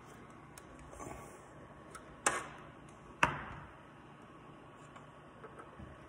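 Cable connectors being unplugged and plugged in at the back of rack-mounted power amplifiers while the amps are swapped: a few sharp clicks and knocks, the two loudest about a second apart near the middle.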